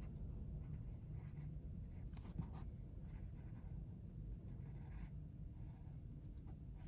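Pencil scratching on paper in short, faint tracing strokes, over a low steady hum.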